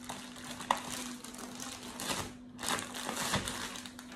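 Thin plastic wrap rustling and crinkling in irregular bursts as a laptop is slid out of its protective plastic bag, with one sharp tick about two-thirds of a second in.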